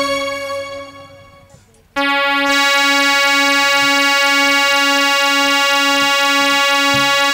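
Accompanying keyboard music: a held chord fades away over about two seconds, then a new chord comes in about two seconds in and is held steadily, its lower note gently pulsing.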